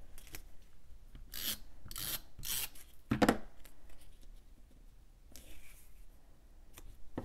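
Cardstock strips sliding and rubbing against a paper scrapbook page as they are laid down and pressed into place: a few short scraping rubs, the loudest about three seconds in.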